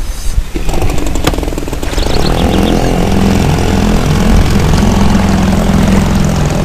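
An engine starts up about a second in, then runs steadily, with a single sharp click just after it starts.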